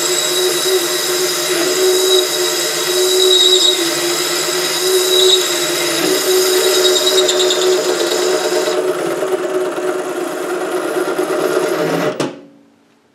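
SC2 mini lathe running in reverse, its parting tool cutting into an aluminium rod: a steady motor and gear whine with a hiss of cutting. About twelve seconds in the lathe is switched off and the whine falls away as the spindle spins down.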